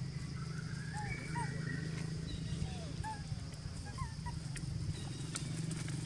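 Short, high chirping animal calls, each briefly rising and falling in pitch, repeated irregularly over a steady low hum.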